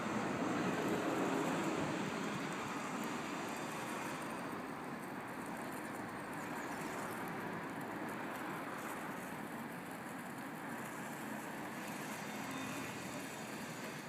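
Steady noise of road traffic, with no distinct events.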